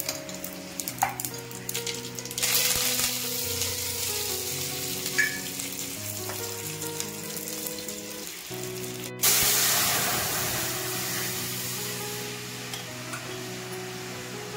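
Mustard seeds crackling in hot oil in an aluminium kadai, then sizzling as dried red chillies, green chillies and curry leaves go in for the tempering. After a brief break comes a louder sizzle that fades slowly as the rasam liquid meets the hot tempering. Background music plays throughout.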